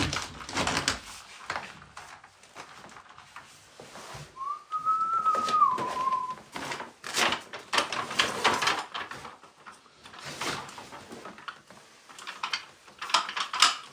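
A person whistles one short note about four seconds in, sliding up, holding, then stepping down. Irregular rustling and scraping from handling materials comes throughout.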